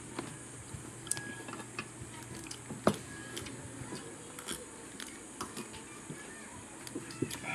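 Someone eating chicken feet adobo: chewing, with scattered small clicks and taps of utensils or bones and one sharper click about three seconds in, over a steady low hum.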